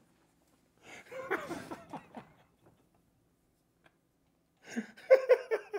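A person laughing in two short spells: one about a second in, and a louder run of quick ha-ha pulses near the end.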